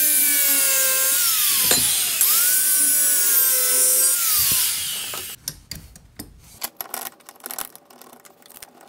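Angle grinder cutting off bolts: a high whine that sags in pitch as the disc bites, running for nearly two seconds, stopping briefly, then cutting again for about two more seconds before winding down about five seconds in. After that come light metallic clicks and taps of parts being handled.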